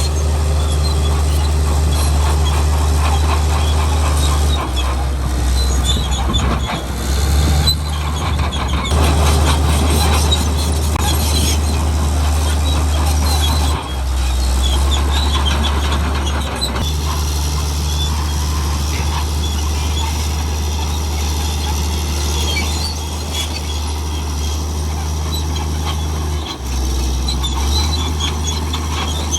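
Komatsu D65E crawler bulldozer's diesel engine running under load, its pitch stepping up and down several times. Squealing and clanking come from the steel tracks.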